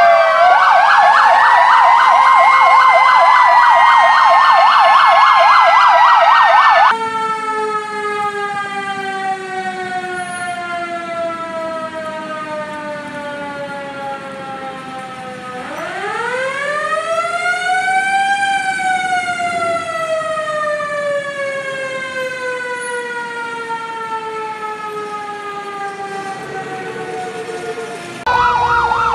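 Ambulance sirens. At first several sound together, a fast yelp over slower wails. About seven seconds in this gives way to a single quieter wail that slowly falls, winds up over about three seconds, then slowly falls again. Near the end a loud fast yelp comes back.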